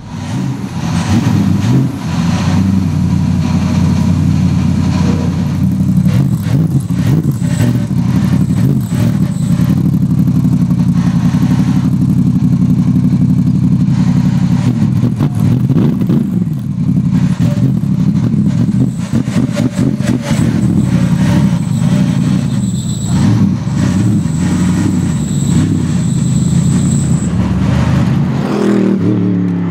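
Mercedes SLS AMG GT3 race car's V8 idling loudly through its side-exit exhaust, with the revs rising and falling slightly now and then.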